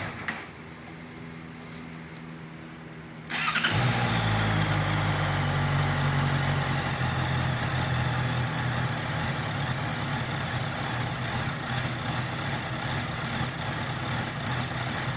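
A 2018 Honda CBR650F's inline-four engine being started a little over three seconds in: a brief crank, then it catches and settles into a steady idle, the idle its owner calls rough on a cold start.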